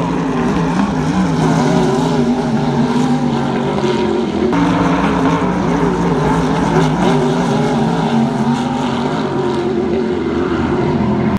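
Racing engines of two Pro Light hydroplanes at speed on the water: a loud, steady drone whose pitch wavers up and down.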